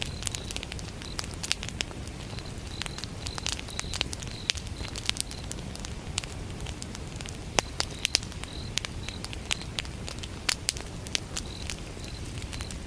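Wood fire burning, with frequent sharp crackles and pops over a steady low rumble. Crickets chirp in short high-pitched pulsed trills that come and go.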